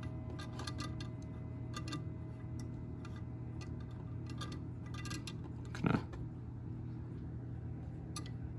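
Small, irregular clicks and taps of hands working on a wall clock's pendulum and Hermle movement while the pendulum is stopped for adjustment, with a louder single knock about six seconds in, over a steady low hum.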